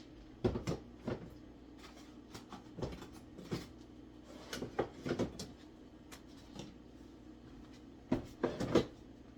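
Irregular knocks and clatter of kitchen items being handled, loudest in a quick cluster near the end.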